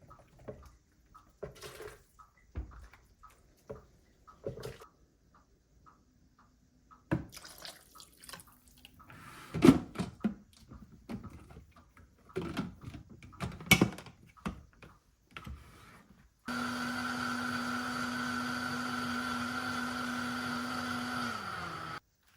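Kitchen work sounds, a scatter of knocks and clatter from utensils and containers, then a small electric kitchen appliance motor runs steadily for about five seconds and winds down as it is switched off.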